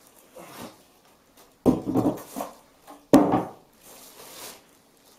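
Polystyrene packing and plastic wrapping handled while unpacking a monitor: two sudden knocks, each followed by scraping, about one and a half and three seconds in, then a plastic bag rustling.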